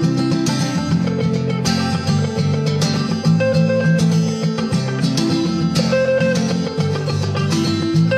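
Instrumental guitar passage with no singing: a steel-string acoustic guitar strummed in a steady rhythm under an electric guitar picking single held notes, the chords changing every second or two.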